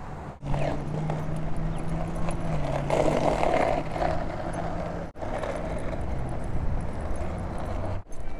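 Skateboard wheels rolling over asphalt as two dogs on leashes pull the rider, with street traffic and a low steady engine hum in the first half. The sound breaks off for an instant about half a second in, again about five seconds in and near the end.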